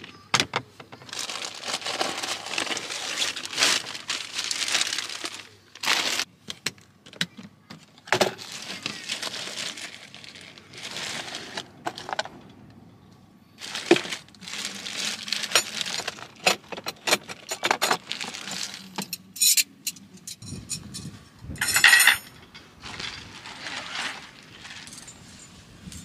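A clear plastic bag rustles and crinkles in several bouts as a fabric bundle is pulled out of a plastic folding storage crate. Sharp clicks and knocks of hard plastic come in between.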